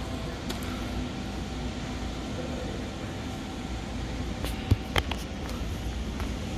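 Steady low hum and background noise of a large store warehouse, with two sharp knocks close together a little under five seconds in.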